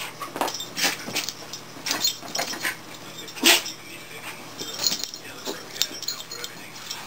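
A black cat and a shaggy pet play-fighting on a bed: irregular scuffling with light metallic clinks, and one louder sound about three and a half seconds in.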